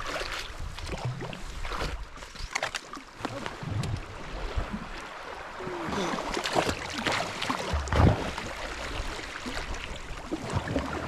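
Canoe moving down a fast, swollen river: paddle strokes and splashes over rushing water, with short sharp knocks and splashes scattered throughout.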